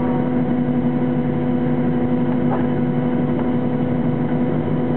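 Steady hum and rush of a Boeing 737-800's CFM56-7B turbofan engines and airflow, heard inside the passenger cabin, with several fixed tones over the noise.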